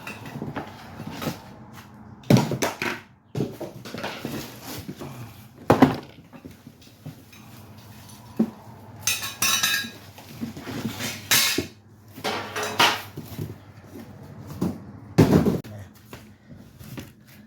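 Gas-grill parts clattering and knocking as they are handled and unpacked, a run of irregular clanks, with rustling or scraping stretches a little past the middle.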